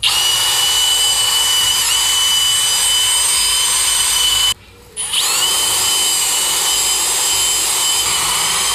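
Brushless cordless drill spinning a small drill brush, scrubbing rust and grime out of the pockets of a Dana 60 axle housing with a steady high whine. It stops briefly about halfway through and then starts up again.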